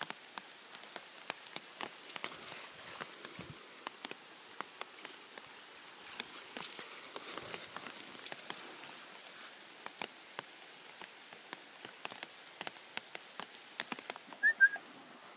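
Steps crunching on wet river gravel and pebbles: a steady run of small irregular clicks and crackles, busier for a moment about halfway through. Near the end, a person gives a short two-note whistle.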